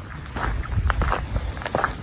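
Footsteps of someone walking outdoors, with an insect chirping in a steady high-pitched pulse, about five chirps a second.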